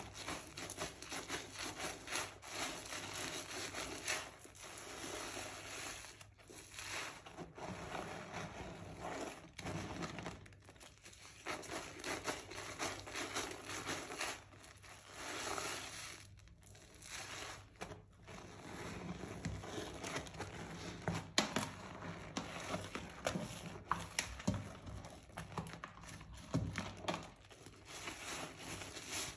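Hands squeezing and kneading soaked, mushy Palmolive soap bars in a tub of sudsy water, making wet squishing and crackling in uneven strokes with a few brief pauses.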